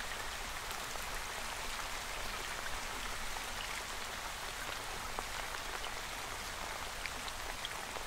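Steady rain, an even hiss with scattered light drop ticks.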